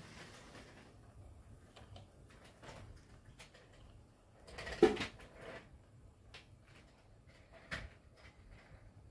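HO scale model freight cars rolling along the track, their wheels making faint, irregular clicks and light rattling. One louder short knock comes about five seconds in.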